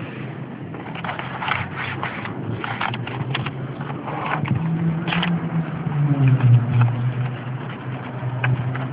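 Scraping and clicking of a hidden licence-plate cover being slid and handled over the plate. A steady low engine hum runs underneath and shifts in pitch around the middle.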